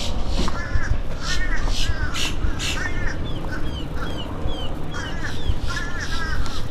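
Birds giving repeated harsh, caw-like calls in short runs, with a string of short, falling, higher notes in the middle. Wind rumbles on the microphone.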